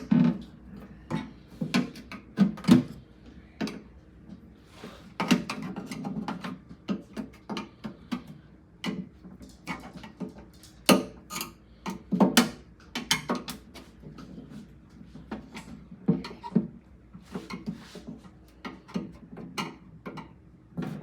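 Irregular plastic clicks, taps and knocks, with short stretches of scraping, as a Samsung refrigerator crisper drawer front is pried and worked loose from its tabs.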